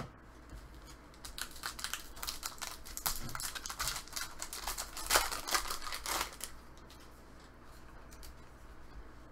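Hockey trading cards being handled and flipped through by hand on a table: a rapid run of small clicks and crinkling rustles, busiest in the middle seconds and quieter near the end.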